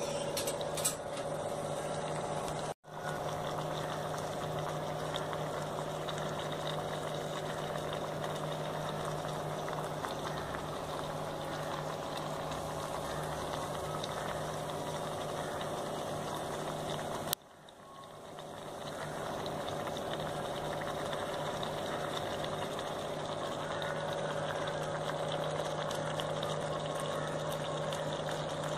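Steady hum and hiss of a pan of curry simmering over a lit gas burner, with faint bubbling. The sound cuts out suddenly twice, about three seconds in and about seventeen seconds in, coming back gradually the second time.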